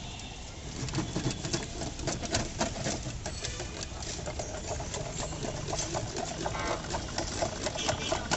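Wooden stick beating aloe vera juice in a steel mug, giving a rapid, irregular clatter of knocks against the metal. It starts about a second in.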